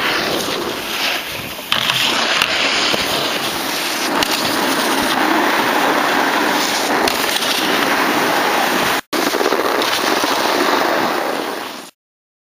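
Steady rushing noise of wind on the camcorder's microphone mixed with snowboards sliding over packed snow. It drops out for an instant about nine seconds in and cuts off abruptly shortly before the end.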